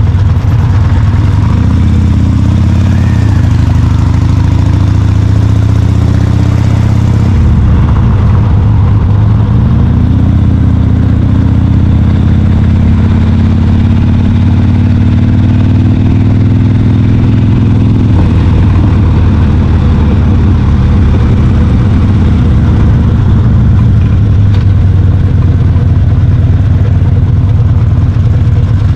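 Motorcycle engine running under way, its pitch climbing with the revs and falling back sharply about 7 seconds in and again a little past halfway, then holding steadier.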